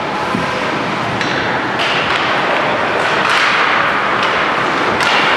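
Ice hockey play in a rink: a steady scraping wash of skates on the ice, with a few sharp taps and clacks of sticks and puck scattered through it, echoing in the hall.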